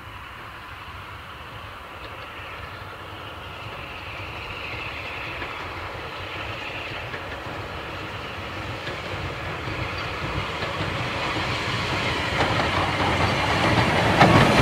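Southern Railway unrebuilt Battle of Britain class Bulleid Light Pacific No. 34070 'Manston', a three-cylinder 4-6-2 steam locomotive, approaching with its train and growing steadily louder throughout.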